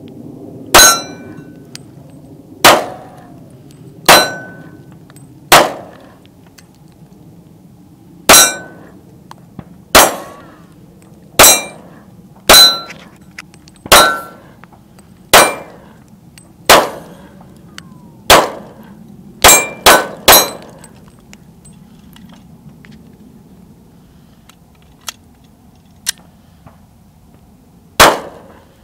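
Ruger SR40 .40-calibre pistol firing about sixteen single shots, mostly one to two seconds apart. There is a quick three-shot string about two-thirds of the way in and a long pause before the last shot. Several shots carry a brief metallic ring, typical of the rounds striking the steel flip target.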